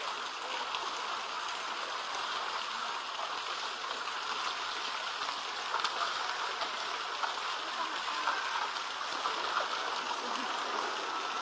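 Steady rush of water with small splashes as elephants bathe in a pool, one slapping its trunk into the water.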